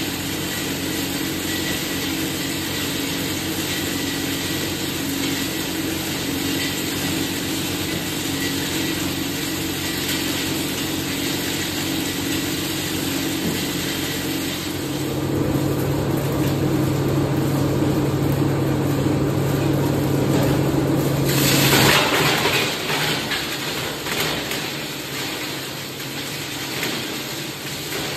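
Plastic scrap grinder running steadily while plastic scrap is fed into it. About halfway through it grows louder with a deeper hum. About three quarters through there is a brief harsh burst, and then it settles back.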